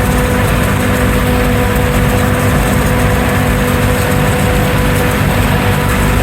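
Heavy farm machinery engines, tractor and forage harvester, running steadily with a constant hum.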